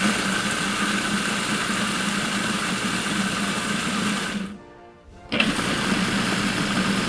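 Food processor motor pulsing as it purees mayonnaise, garlic and jalapenos: a steady whir that stops about four and a half seconds in, starts again just under a second later, and stops again right at the end.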